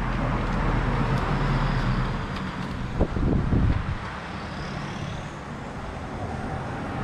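Honda ADV scooter on the move: its single-cylinder engine runs steadily under a haze of wind and road noise, with a brief louder sound about three seconds in.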